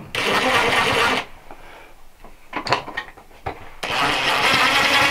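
Cordless drill-driver running twice, about a second and then nearly two seconds, as it drives the mounting screws of a ceiling light fixture into the box, with a few sharp clicks between the runs.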